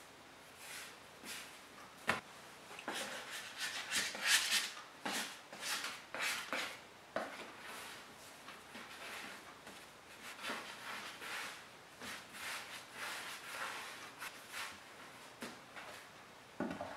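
Hands stretching, folding and shaping soft bread dough on a floured wooden board: a run of soft, sticky squishing, patting and rubbing sounds, with a sharp click about two seconds in.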